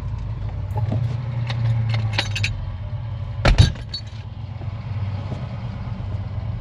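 Old Chevrolet pickup's engine running with a steady low hum heard from inside the cab. Light metallic clinks and rattles come about two seconds in, then a loud double metal clunk about three and a half seconds in.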